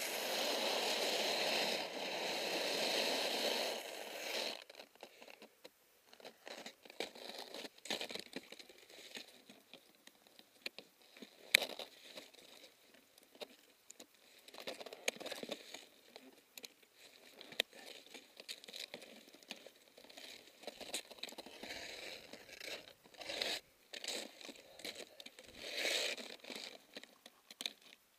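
A few seconds of steady rushing noise, then skis and ski boots scraping and crunching on hard, textured spring snow, with scattered sharp clicks from ski poles and gear as the skier shifts and edges in place.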